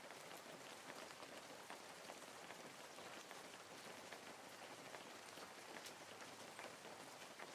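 Wood fire crackling in a fireplace, quiet: a steady hiss dotted with many small, sharp pops and snaps.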